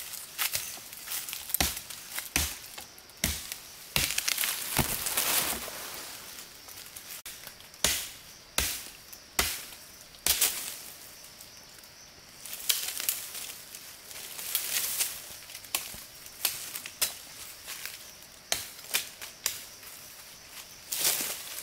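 Wood being chopped or cut: about twenty sharp chopping knocks and cracks at uneven intervals, with a stretch of rustling and scraping between them and a short pause partway through.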